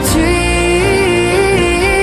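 Pop song playing, with a singer holding one long, slightly wavering note over the backing band.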